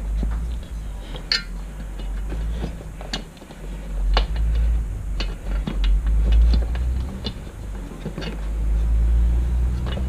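Steel ATV plow mount bracket and its bolts clinking and knocking against the frame as they are held up and lined up by hand, a few sharp metal clicks spread through, over a steady low rumble.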